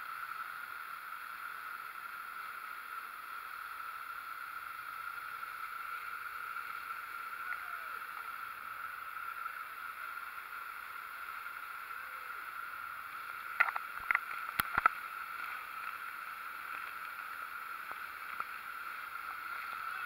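Waterfall heard from behind its falling curtain of water: a steady, unbroken rushing noise. A few sharp clicks come about two-thirds of the way in.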